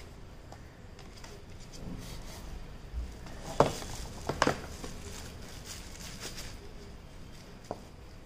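Hands handling packaging: soft rustling of tissue paper and bubble wrap, with a few sharp clicks as the tablet is set into its cardboard box. The loudest clicks come as a pair about halfway through.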